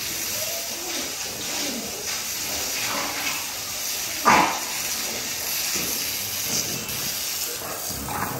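A dog in a kennel barks once sharply about four seconds in, with a quieter bark near the end, over a steady background hiss.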